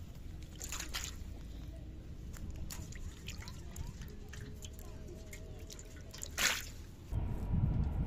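Small splashes and drips of live fish flapping in a shallow metal basin of water, in scattered short bursts, with one louder splash about six and a half seconds in. Near the end a low wind rumble on the microphone takes over.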